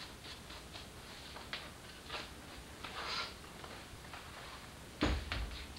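Faint rustling and scuffing of a leather seat cover being worked and rolled over the foam of a seat cushion, with a louder thump about five seconds in.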